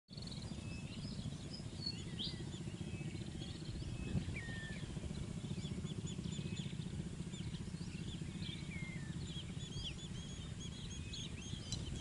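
A flock of perched birds calling: many short chirps and whistled notes, rising and falling and overlapping, over a steady low rumble.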